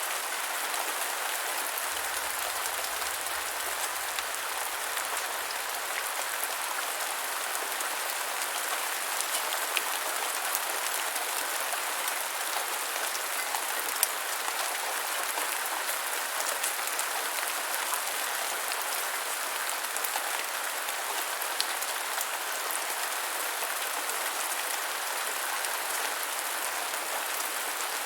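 Steady rain falling on the ground: an even hiss of rainfall with scattered closer drops ticking.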